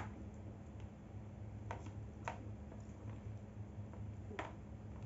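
About four light clicks and taps as an air fryer's power cord is handled against the appliance, over a steady low hum.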